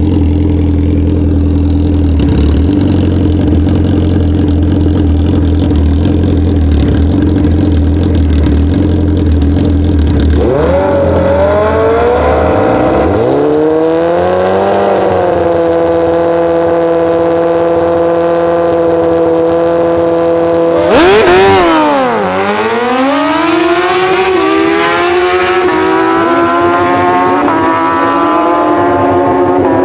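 Two drag-racing sportbikes at the start line, engines first running steadily, then revving up and holding a steady high rev for several seconds. About two-thirds of the way in they launch with a sudden loud burst, and the engine pitch dips and climbs repeatedly through the upshifts as they pull away down the strip.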